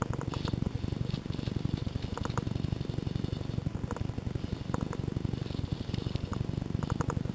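Short bursts of airsoft gunfire, three or four quick sharp clicks each, heard a few times over a steady low rumble on the camera's microphone.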